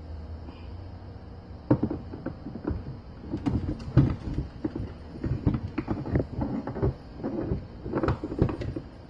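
Cast metal transmission housing of a 1955 Oldsmobile Hydra-Matic knocking and clunking against the output shaft and case as it is slid down over the shaft and worked into place, a quick irregular run of knocks starting about a second and a half in, the loudest about four seconds in.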